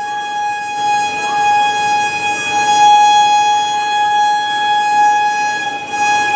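Indian Railways locomotive horn sounding one long, steady blast on a single held pitch.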